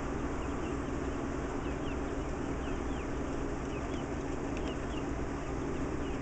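Riding lawn tractor engine idling steadily, with short bird chirps over it.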